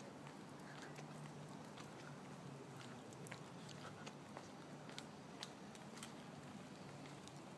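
Quiet street background: a faint, steady low hum with scattered light clicks and ticks.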